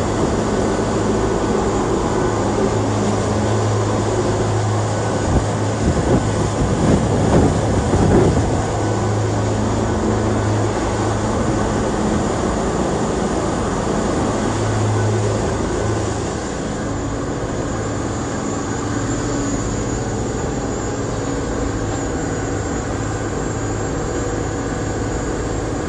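Camuffo 44 motor yacht's engines running steadily at a cruising speed of about 20 knots: a steady low hum under the rush of wind and churning wake. The noise grows louder and uneven about six to eight seconds in, and drops a little about sixteen seconds in.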